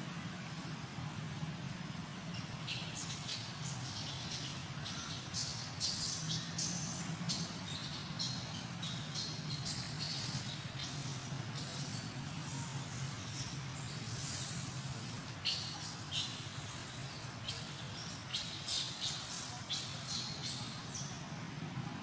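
Forest insects: a steady high-pitched hiss with short chirps that start about three seconds in and come irregularly, several a second at times, over a low steady hum.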